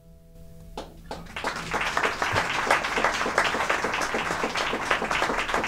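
The last acoustic guitar chord of a song rings out and stops about a second in, and an audience breaks into applause that swells quickly and keeps going.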